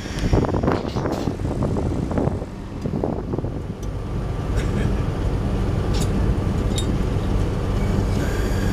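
Diesel locomotive engine idling close by, a steady low rumble. Voices are heard over it in the first few seconds, a few light metallic clicks follow, and a high hiss starts near the end.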